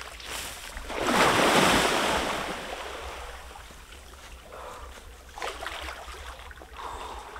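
A person plunging into a river with one big splash about a second in, the water churning and settling over the next couple of seconds, then a few smaller splashes from swimming strokes.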